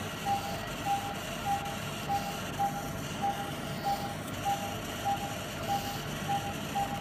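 Operating-theatre patient monitor giving its pulse beep: short beeps at one steady pitch, evenly spaced at a little under two a second, each marking one heartbeat of the patient under anaesthesia. The beeps sit over a steady background noise.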